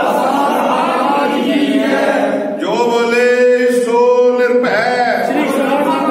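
A group of men chanting a devotional prayer together in unison, holding long notes, with short breaks for breath about two and a half and four and a half seconds in.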